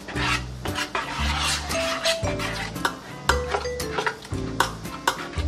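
A metal spoon stirring and scraping a thick chili-paste seasoning in a stainless steel container, with clinks and scrapes against the metal, over background music.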